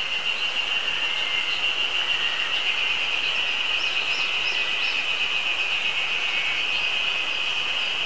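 Ezo spring cicadas (Terpnosia nigricosta) calling, a steady, fast-pulsing, high buzz. A few short high bird notes come in the middle.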